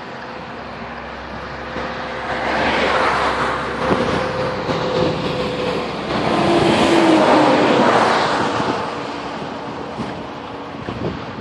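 Highway traffic heard from a moving car: steady road and wind noise, with two vehicles swelling loud as they pass, about three seconds in and again about seven seconds in.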